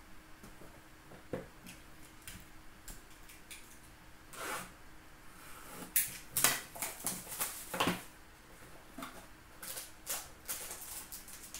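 A cardboard Upper Deck Ultimate hockey card box being picked up, handled and opened by hand: scattered clicks and taps with short rustles of cardboard, busiest around the middle.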